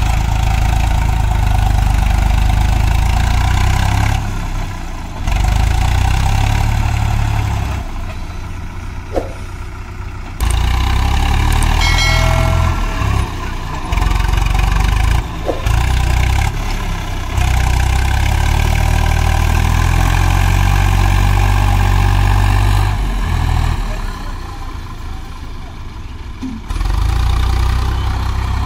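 Diesel tractor engine running hard and steadily, its level dropping and jumping back abruptly several times. A brief high tone sounds about twelve seconds in.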